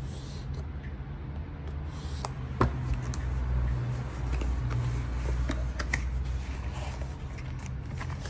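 Steady low rumble with scattered clicks and rustles, like small parts or packaging being handled, and one sharper click about two and a half seconds in.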